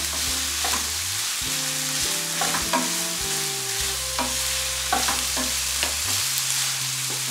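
Sliced onions and green bell peppers sizzling in olive oil in a frying pan while being stirred with a wooden spatula, a steady sizzle with the spatula scraping and tapping against the pan now and then.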